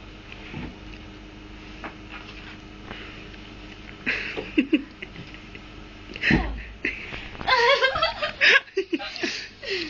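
Quiet room with a few scattered rustles and a knock, then soft laughter and indistinct voices in the last few seconds.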